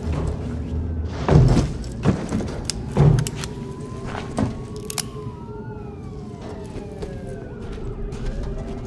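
A series of heavy thuds and knocks, then police sirens: several overlapping sirens sweeping up and down from about four seconds in, over a steady tone.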